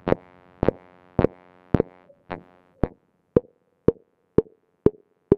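EMS VCS3 MkII analogue synthesizer sounding a steady train of short pitched blips, about two a second and slightly quickening, each with a brief ringing tail.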